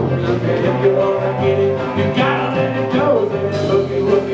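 Live country band playing, with guitars and a bass line that moves between held notes.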